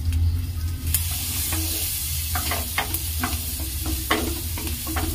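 Chopped garlic sizzling in melted butter in a non-stick pan. A wooden spatula stirs it, tapping and scraping against the pan several times. The sizzle grows stronger about a second in.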